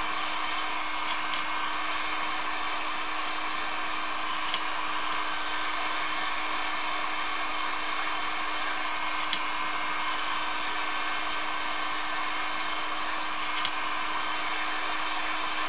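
Electric heat gun blowing steadily on a crankshaft ball bearing, heating it so it expands and will slide into place. A few faint ticks are heard.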